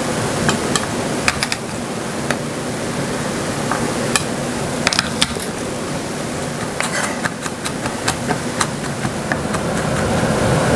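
Knife knocking on a cutting board at irregular intervals, chopping an onion, over a steady background hiss; near the end a louder hiss builds.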